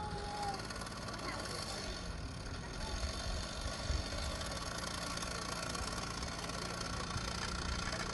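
Background voices of people talking over a steady low motor hum. A brief high whistle-like tone dies away about half a second in.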